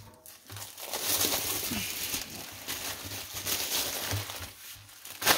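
Crinkling and rustling of a plastic-wrapped cardboard box as it is handled and turned on a table.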